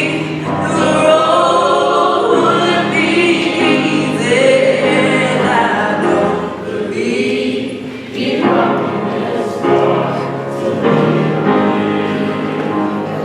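Gospel-style song sung live: several voices singing together over held low accompaniment notes.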